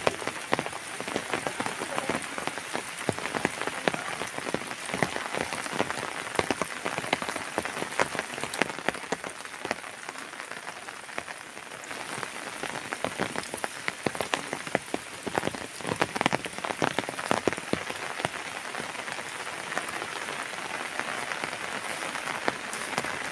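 Heavy tropical rain falling steadily, with many sharp raindrop taps close by. It eases slightly around the middle, then thickens again.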